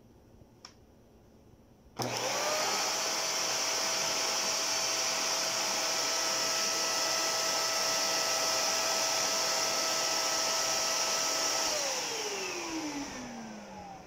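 ATC 600 W bagless handheld vacuum cleaner switched on about two seconds in. Its motor spins up almost at once to a steady whine over a rushing hiss. About ten seconds later it is switched off and winds down with a falling whine.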